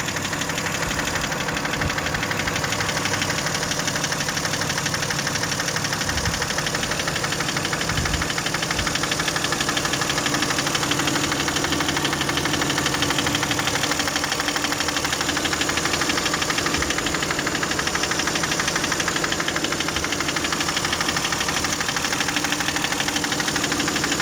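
Toyota 1MZ-FE V6 engine running steadily with a fast, even rhythmic knock. The knock appeared at the first start after the spark plugs were changed and the intake manifold was off.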